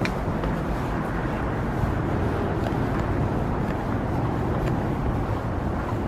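Steady low outdoor rumble, with faint footsteps ticking on a boardwalk deck.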